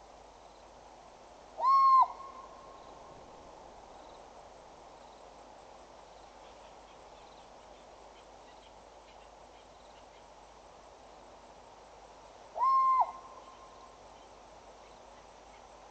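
African fish eagle giving a single short, clear whistled call that rises, holds and drops off, twice, about eleven seconds apart, over a steady background hiss.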